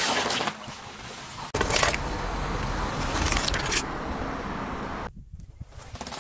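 Car tyre rolling onto and crushing squishy toys and inflatables, with crunching and squashing noises. About a second and a half in there is a sudden loud burst, followed by a steady rushing noise with a low rumble that cuts off about five seconds in.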